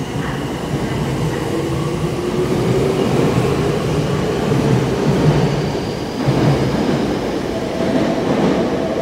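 Tokyo Metro 9000 series electric train accelerating away from the platform: the motors whine, rising slowly in pitch, over the rumble of wheels on rail as the cars pass close by.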